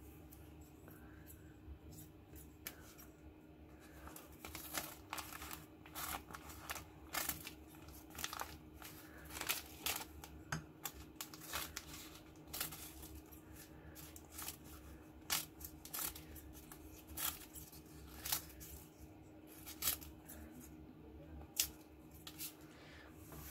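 Seventy-year-old hand-made scissors cutting paper in a test after restoration: a string of crisp snips, about one a second, starting about four seconds in, with paper rustling between them.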